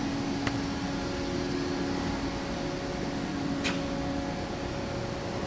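Steady mechanical hum holding a couple of even tones, the lower one fading out about four seconds in, with two faint clicks.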